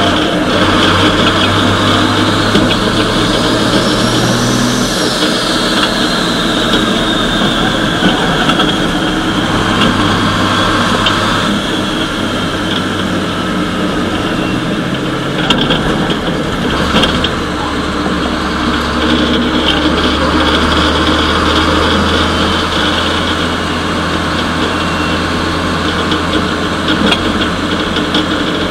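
Ford Copa Truck race truck's diesel engine heard from inside the cab, running under way. The engine note steps to a new pitch several times as the gears change, and a high whine rises and falls around four seconds in.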